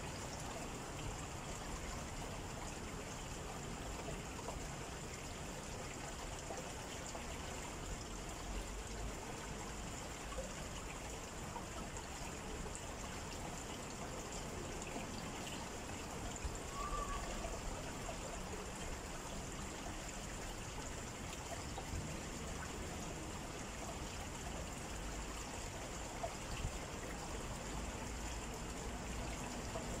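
Outdoor nature ambience: a steady, even rushing noise with a thin, steady high-pitched whine over it, and a single short chirp a little past halfway.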